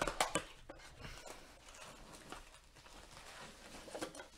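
A cardboard trading-card blaster box handled and opened by hand: a quick cluster of taps and scrapes at the start, light rustling of cardboard, then a few more clicks near the end as the box flap is pulled open.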